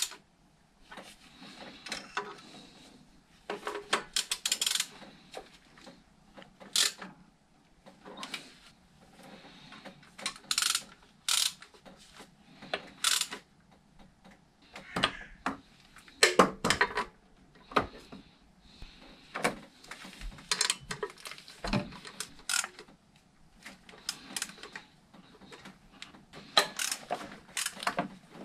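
Hand ratchet wrench clicking in short, irregular runs as bolts are done up, with sharp metallic clicks every second or two.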